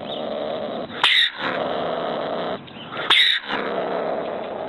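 Ring-tailed cat calling: long harsh calls broken twice by a sharp yelp, about a second in and about three seconds in.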